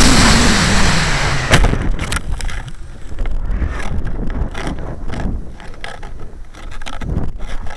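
Model rocket's D12 solid-fuel motor hissing under thrust, with a tone falling in pitch, then dying away and cutting out about a second and a half in at burnout. After that, wind rushes and buffets over a small camera taped to the coasting rocket, with scattered crackles and thumps.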